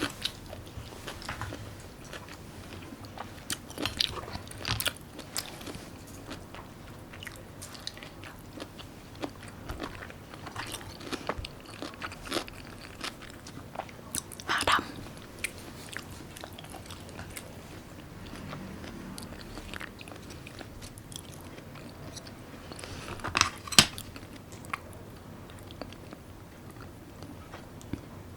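A person chewing and eating, with wet mouth sounds and scattered sharp clicks, a few of them louder.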